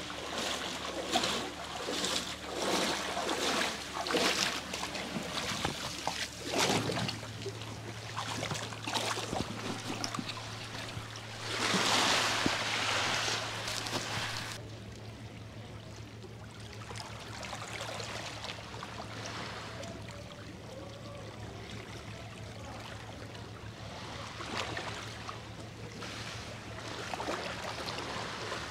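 Small sea waves lapping and washing at a pebbly shore, with a louder wash about halfway through and a steady low hum underneath from about a quarter of the way in.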